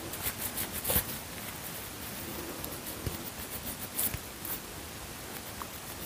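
Faint rustling of rubber-gloved hands wiping and handling a small kitchen item, with a few light taps.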